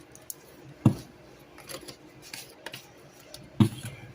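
Kitchen handling clatter: two dull knocks, about a second in and near the end, with light clicks and clinks between, as spice containers and a measuring spoon are picked up and set down on the counter.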